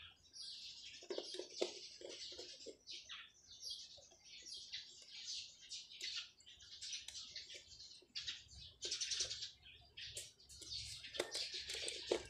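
Small birds chirping repeatedly in the background, many short high chirps, faint under the quiet of the room.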